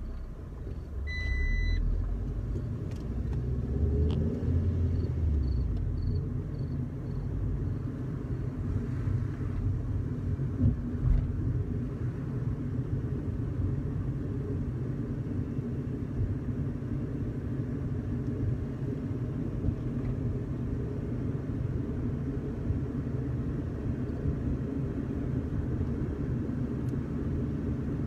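Car driving at steady speed: a continuous low engine and road rumble from the moving vehicle. A short high electronic beep sounds about a second in.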